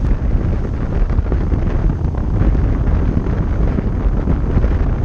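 Wind buffeting the camera microphone: a loud, steady low rumble, with surf faintly underneath.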